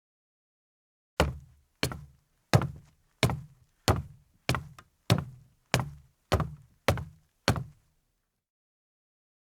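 A man's leather-soled shoes walking on a deck: about eleven steady footsteps, roughly one and a half a second, each a sharp knock with a low thud. The steps start about a second in and stop a little before the end.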